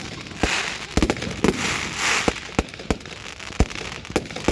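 Fireworks going off: about ten sharp bangs in quick, uneven succession, with bursts of crackling hiss from crackle effects, loudest between about one and a half and two seconds in.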